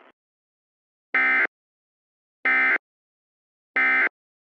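Emergency Alert System end-of-message data burst: three short, identical bursts of buzzy digital tones about 1.3 seconds apart, signalling the end of the alert message.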